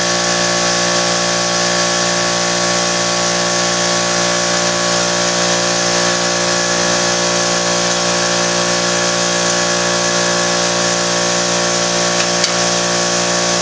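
Power cutting tool running steadily, with a constant-pitch whine and hiss, while cutting through the factory exhaust pipe.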